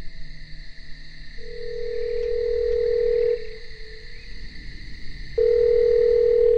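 Telephone ringback tone heard by the caller as the line rings: one steady ring of about two seconds, then, after a pause of about two seconds, a second ring begins near the end.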